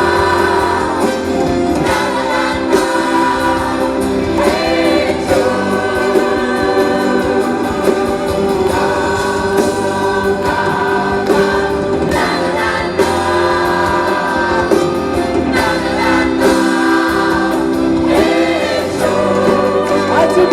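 A live band plays while several voices sing a song together in chorus, amplified through a stage sound system.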